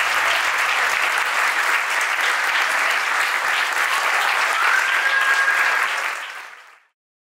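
Audience applauding steadily, with a brief high tone about four seconds in; the applause fades out near the end.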